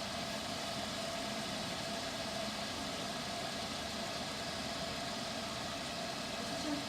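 Salon hood hairdryer running steadily: a constant blowing hiss with a steady hum.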